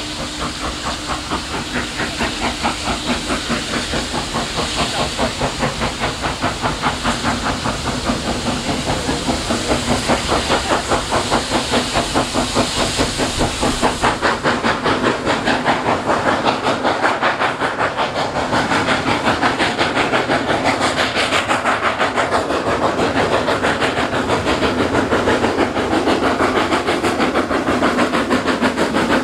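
Saddle-tank steam locomotive working hard with a train of wagons: rapid, even exhaust beats with hissing steam, growing steadily louder as the train approaches.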